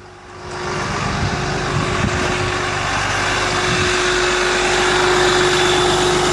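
VMAC VR70 under-hood air compressor system put to work: a steady rush of air with the truck's engine running beneath it, swelling over the first second and then holding steady.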